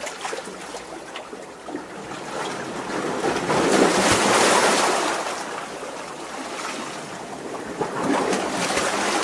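Sea waves washing in between rocks. A larger wave surges in and breaks between about three and five seconds in, then a smaller surge comes near the end, with small splashes and trickles in the lulls.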